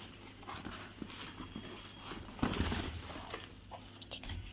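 Paper and cardboard rustling and crinkling as new shoes stuffed with paper are handled and lifted out of a cardboard box, with the loudest rustle a little past two seconds in.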